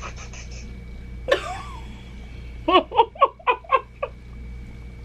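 A woman laughing: a short rising cry a little over a second in, then a run of six quick, evenly spaced bursts of laughter about three seconds in.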